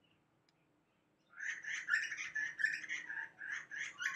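Birds chirping in a quick, continuous run of short notes, starting about a second and a half in.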